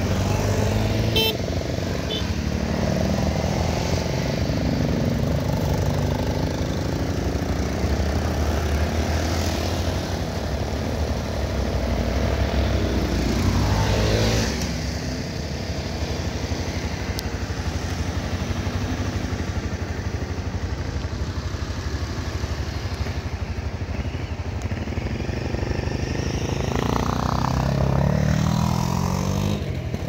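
Motorcycle engine running, its pitch rising and falling with the throttle. It grows louder and then drops off sharply about halfway through, and climbs again in steps near the end.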